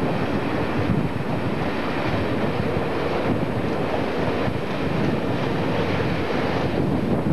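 Railway coaches rolling past close by: a steady rumble and rush of wheels on the rails.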